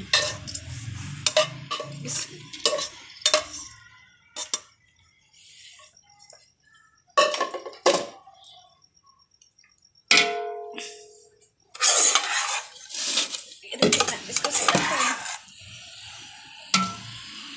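Metal spoon scraping and knocking against metal cooking pots as rice and masala are scraped out and layered into a large pot: irregular clinks and scrapes, with a quieter stretch a few seconds in and a brief ringing note about ten seconds in.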